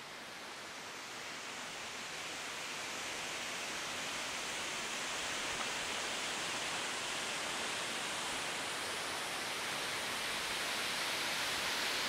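Steady rushing of falling water from the 19 m cave waterfall on the Metuje river, growing gradually louder as it comes nearer.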